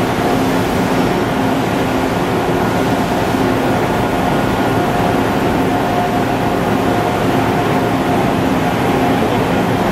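Okuma ES-L10 CNC lathe running with its spindle turning at steady speed: a constant mechanical hum with a couple of held whining tones.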